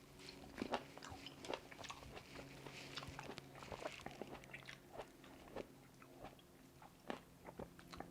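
A person chewing Shine Muscat grapes close to the microphone: faint, irregular wet mouth clicks and crackles.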